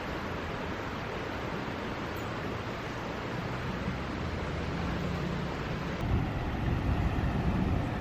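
Steady rush of the fast-flowing River Tees, with wind buffeting the microphone in low gusts from about six seconds in.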